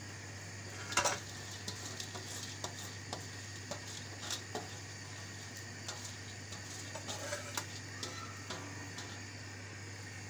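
Metal bowl and spoon clinking and tapping against a large metal cooking pot as rice is added to boiling stock: one sharp clink about a second in, then lighter scattered taps, over a steady low hum.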